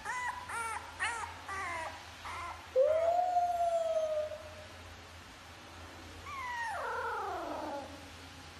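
French bulldog puppy whining: a quick run of short, arched whimpers, then a long drawn-out whine about three seconds in, and a falling whine near the end.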